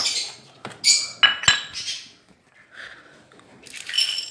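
Dry rabbit pellets rattling as they are poured from a plastic scoop into a ceramic food bowl near the end, after a few sharp clinks and knocks in the first second or two.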